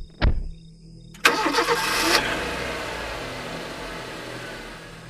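Two low thumps, then about a second in a car engine starts with a sudden loud burst and runs, fading gradually as the car pulls away.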